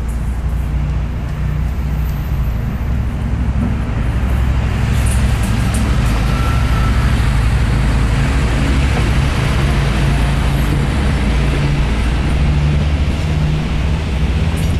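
Siemens Desiro diesel railcars (DSB class MQ): one runs past close by with a steady low diesel engine hum and a rush of wheel and running noise that builds about four seconds in, while the other idles at the platform.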